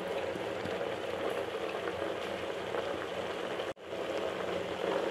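Mixed vegetables and a freshly added chilli-onion masala sizzling steadily in oil in a pot, the frying stage that cooks off the masala's raw smell. A momentary gap about three-quarters of the way through.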